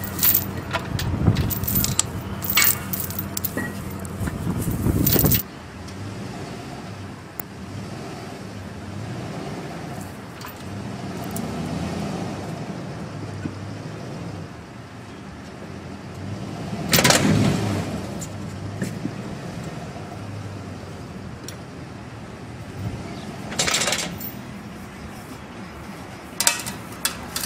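About five seconds of scraping and knocking as a man works by hand at the base of a metal fence post, then a pickup truck's engine running steadily as it pulls the post out of the ground with a chain, rising louder about 17 seconds in and again near 24 seconds.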